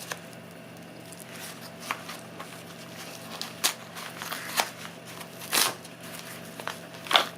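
Small parcel being unwrapped by hand: scattered crinkles, rustles and scrapes of its packaging, with a couple of louder rustles in the second half.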